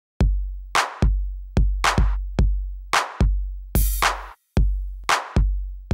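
Electronic intro music: a drum-machine beat of deep bass kicks that ring on, alternating with sharp snare-like hits about twice a second, with a burst of hiss near four seconds in.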